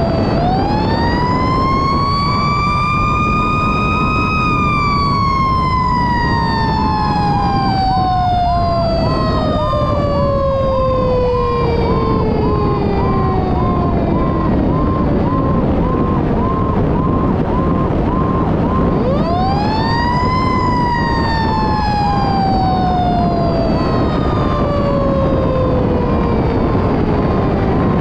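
Fire engine's bumper-mounted mechanical siren (Federal Q type) winding up over a few seconds and then slowly coasting down in pitch, then winding up again about two-thirds of the way through. Under it run a second siren tone pulsing about twice a second and steady road and engine noise.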